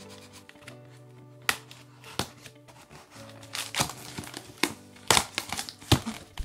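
Clear plastic packing tape being picked at, slit and pulled off the seam of a cardboard shipping box, in sharp crackles and scrapes that come thicker and louder in the second half. Background music with steady held notes plays underneath.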